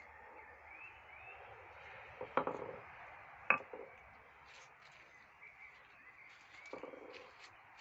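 Two sharp knocks or clinks, about two and a half and three and a half seconds in, and a softer short clatter near the end, over faint high chirps.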